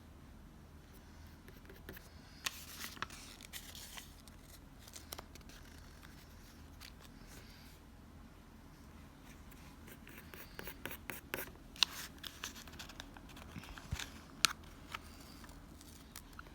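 Scissors cutting paper up close, with paper rubbing and scraping. A scraping stretch comes a few seconds in, and a run of sharp little snips and clicks follows in the second half.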